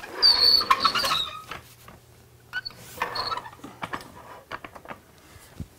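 A floor jack is rolled across concrete and slid into place under a car's front, its wheels and handle squeaking and rattling in two short spells, about a second long at the start and again around three seconds in, followed by light clicks and knocks as it is positioned.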